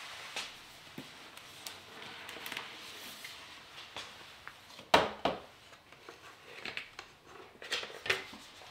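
Cardboard box being opened and its contents handled: rustling and scraping of cardboard, with scattered sharp clicks and knocks, the loudest a sharp knock about five seconds in and a few more near the end as the manual is lifted off a plastic tray.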